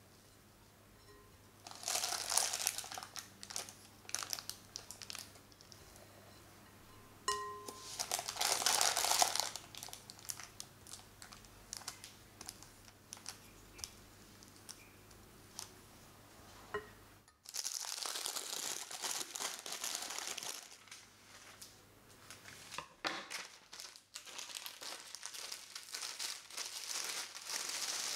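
A plastic piping bag crinkles in several separate bursts of rustling as it is filled with butter cookie dough and handled. Baking paper crinkles near the end.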